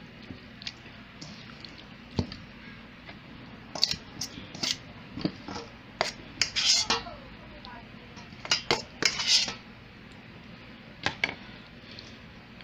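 Chicken pieces being turned and rubbed by hand in marinade in a stainless steel bowl, knocking and clattering against the metal in irregular bunches, loudest in the middle stretch.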